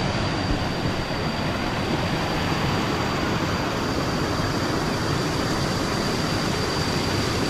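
Steady rush of falling water from a waterfall, an even wash of noise with a thin, steady high tone above it.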